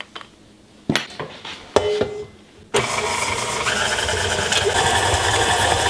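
A few sharp knocks, then about three seconds in a KitchenAid stand mixer switches on and runs steadily, its beater mixing cookie batter in a stainless steel bowl.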